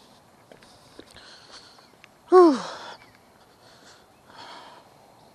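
A man's short wordless vocal sound about two seconds in, dropping in pitch, with a breathy tail after it. Faint rustling and breathing around it.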